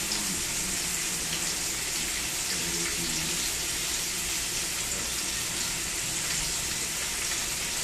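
Pork ribs and backbone sizzling in a little hot oil in a pot, a steady frying hiss.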